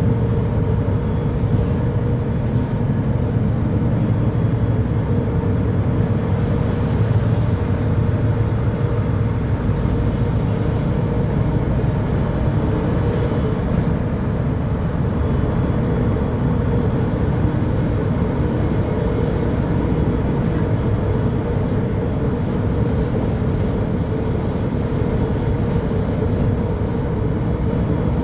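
Diesel engine of a Mercedes-Benz O500UDA bi-articulated bus running steadily, a loud low drone with a faint steady hum above it.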